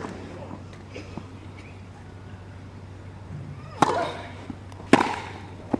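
Tennis racket strikes on the ball in a rally: three sharp hits about a second apart in the second half, over a quiet, low background hum.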